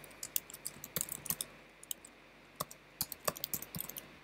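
Typing on a computer keyboard: quiet, irregular keystrokes in two short runs with a brief pause between them.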